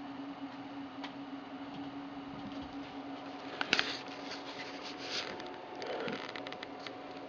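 Scraping and clicking of a sealant-coated through-hull fitting being pushed into its hole in the fiberglass hull, with a sharp click cluster about halfway in and more scratchy handling a couple of seconds later, over a steady background hum.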